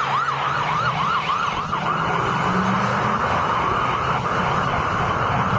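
Emergency vehicle siren on a fast yelp, rising and falling about three times a second, over traffic noise. The yelping stops about two seconds in, leaving steady street and engine noise.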